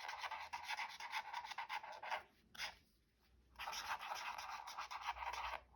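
Handwriting on paper: a writing implement scratching across the page in two stretches of strokes, with a short pause in the middle.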